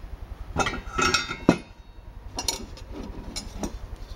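Metal parts of a J79 afterburner torch igniter handled and set down on a plywood bench: a string of sharp clinks and knocks, the loudest about a second and a half in, over a steady low hum.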